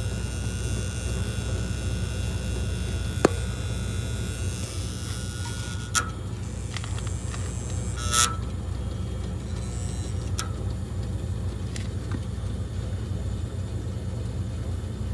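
Antique gas furnace's magnetic diaphragm gas valve buzzing steadily with a low mains-type hum, broken by a few sharp clicks. The owner takes the buzz for the valve's spring-loaded plunger vibrating.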